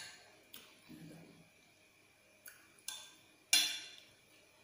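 A few sharp clicks and clinks of tableware against a ceramic plate, the loudest about three and a half seconds in, with a brief low hum of voice about a second in.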